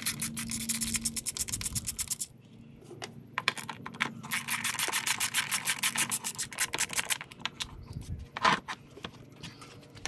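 Quarter-inch ratchet with a 10 mm socket clicking rapidly while the engine cover's two nuts are undone, in two runs: a short one at the start and a longer one from about four to seven seconds in. A knock near the end as the plastic engine cover is lifted off.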